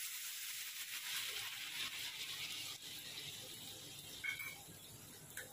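Water poured from a steel vessel into a hot pan of fried samak rice, splashing steadily for about three seconds, then fading out. A short faint knock comes near the end.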